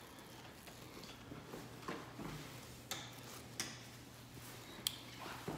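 Faint footsteps and clicks on a hardwood floor, a handful of sharp ticks spaced irregularly about a second apart, over a faint steady low hum.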